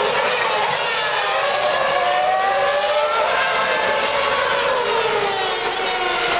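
Formula One cars' 2.4-litre V8 engines running at high revs on the circuit. Several engine notes overlap, each rising and falling in pitch as the cars pass and shift gears.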